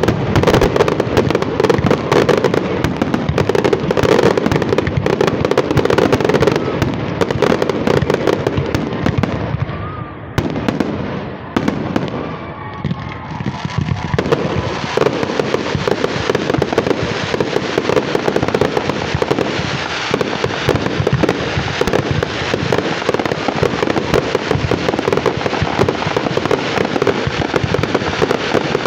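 Fireworks display: a dense, continuous run of bangs and crackling from bursting shells. It thins out and drops a little about ten seconds in, then builds back up.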